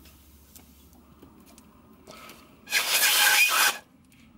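A rasping rub of about a second, in two parts, from a paper-wrapped plastic drinking straw being worked, about two-thirds of the way in.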